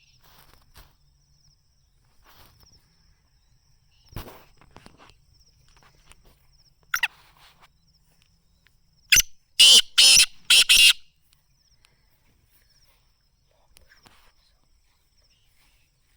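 Black francolin calling: one loud call of four short notes in quick succession about nine seconds in. A faint, steady, pulsing high trill runs underneath.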